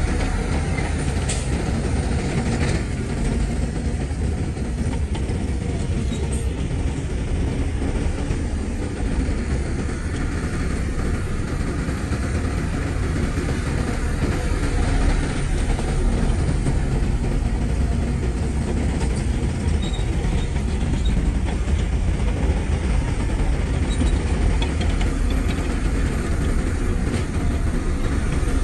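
Heavy diesel earthmoving machinery running, a steady deep rumble with a few faint clicks and clanks.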